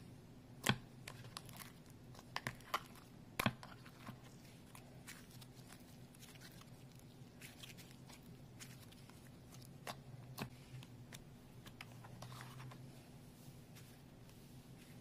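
Fingers poking, stretching and pulling apart soft slime in a tray, giving scattered sticky clicks and pops, the loudest in the first few seconds and a couple more midway, over a faint steady low hum.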